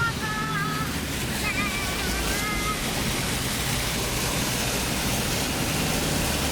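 Floodwater rushing and splashing around a four-wheel drive towing a caravan as it drives through the water, over a steady low engine rumble. A wavering high tone sounds over it for the first few seconds.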